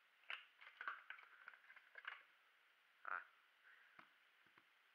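Faint, irregular crinkling of a clear plastic bag as a new megaminx puzzle cube is pulled out of it, with a few light clicks and a sharper click about four seconds in.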